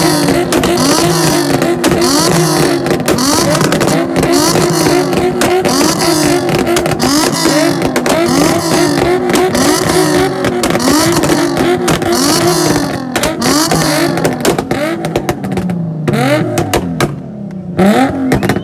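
Nissan 350Z V6 engines held on a two-step launch limiter: rapid crackling and banging from the exhausts while the revs bounce up and down over and over. Near the end the revs fall away, then there is one last loud burst.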